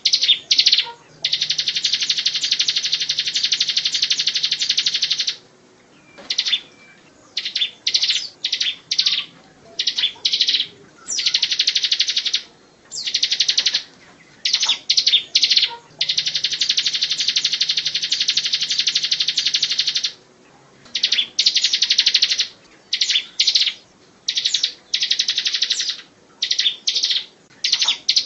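Bar-winged prinia (ciblek) singing in the rapid 'ngebren' style: very fast, high-pitched trills, two of them about four seconds long, with many short trilled bursts between them.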